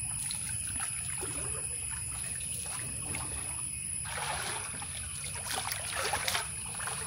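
Pond water splashing and sloshing as a person wading chest-deep sweeps weeds with a long pole, with two bouts of splashing about four and six seconds in.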